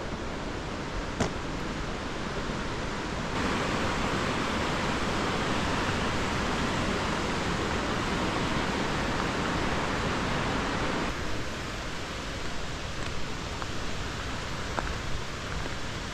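Steady rushing of a mountain river, louder and brighter from about three seconds in until about eleven seconds.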